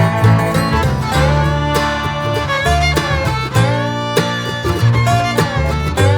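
Instrumental bluegrass-style music with plucked guitar and fiddle, playing a steady run of notes.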